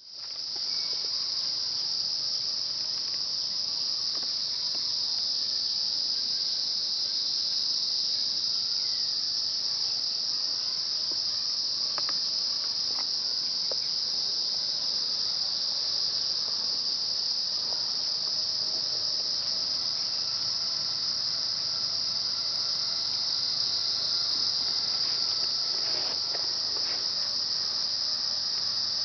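A steady, high-pitched chorus of forest insects droning without a break. A few faint clicks and thin calls sit underneath it.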